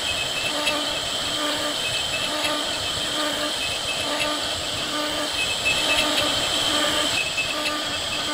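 CNC router spindle whining steadily while its small end mill cuts a pocket in a pine door panel, the cutting noise pulsing about twice a second as the bit works across the wood.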